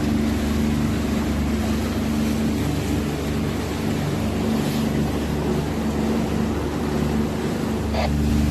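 A small fishing boat's motor runs steadily under way, a constant hum mixed with wind and water noise. Near the end the engine note changes and gets fuller.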